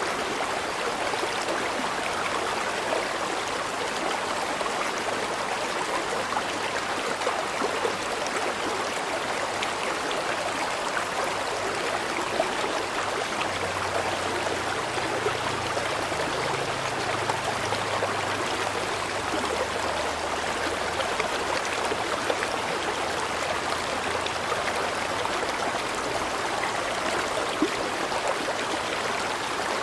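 River water flowing steadily over stones, an even rushing babble with small scattered splashes. A faint low rumble swells and fades around the middle.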